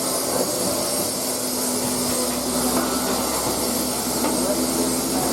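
Steady mechanical hum with one constant low tone: running machinery.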